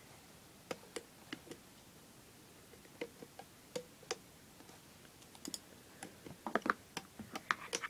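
Light plastic clicks and taps of a loom hook and rubber bands against the pegs of a plastic band loom: a few scattered ones at first, coming quicker in the last two or three seconds.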